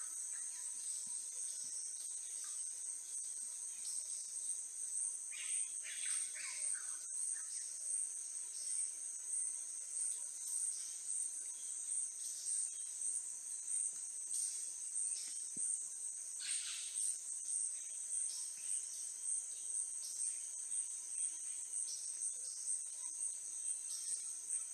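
Insect chorus, a steady shrill high-pitched buzz that pulses about twice a second.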